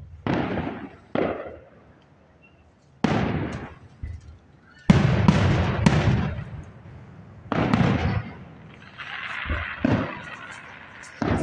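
A series of about eight sharp bangs, each dying away over half a second to a second. The loudest comes about five seconds in, and a crackling patch follows around nine seconds in.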